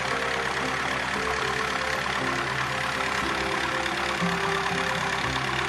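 Massey Ferguson 30 Industrial diesel tractor engine running steadily under load while the tractor pulls a rear blade scraping dry weeds off the ground.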